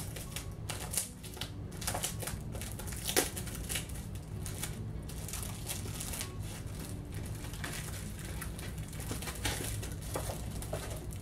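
Plastic packaging crinkling and crackling as it is opened and handled by hand, with irregular crackles throughout and a sharp one about three seconds in.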